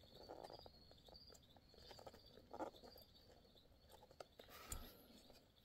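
Near silence: faint rustles and small clicks of parts being handled, with a couple of slightly louder light knocks and a faint high chirping repeating in the background.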